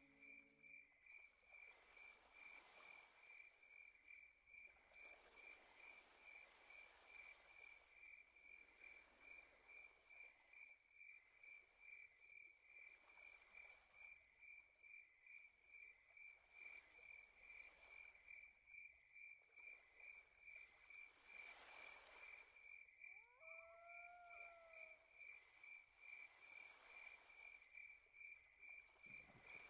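Faint cricket chirping steadily at one high pitch, about three chirps a second. In the first second a low sustained tone fades out, and about 23 seconds in a single short call rises and then holds.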